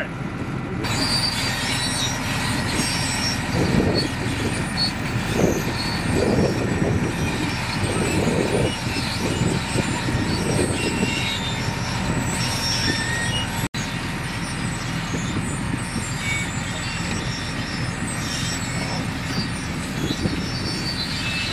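Tractor engine running as it hauls a sunken car out of the canal on a cable, with scattered short high-pitched squeaks over the steady engine noise.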